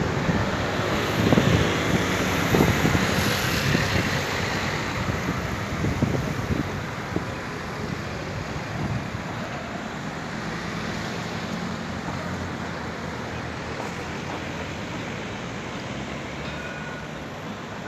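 City street traffic: passing cars and a scooter making a steady rush of road noise, louder for the first several seconds, then settling to a lower, even hum.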